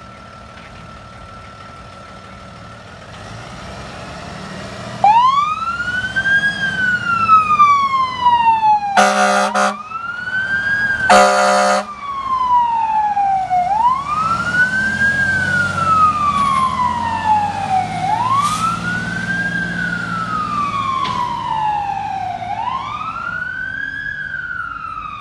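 Ambulance siren wailing as it pulls away, starting about five seconds in. Each cycle rises quickly and falls slowly, repeating about every four seconds. Two loud horn blasts come about nine and eleven seconds in, and before the siren a diesel engine idles.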